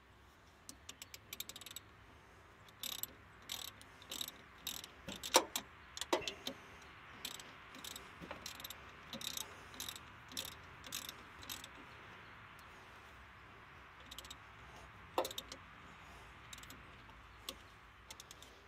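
Ratchet wrench clicking in quick runs as a battery terminal bolt is tightened, with a few sharper metal clacks of the wrenches on the terminal. The clicking thins out after about twelve seconds.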